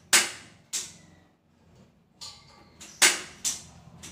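Gas stove igniter clicking about six times at uneven intervals, each a sharp snap, as the burner is lit under the wok.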